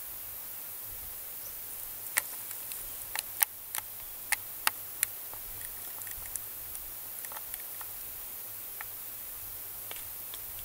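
Steady high hiss with a string of sharp clicks and ticks, the loudest half a dozen coming between about two and five seconds in, and a few fainter ones later.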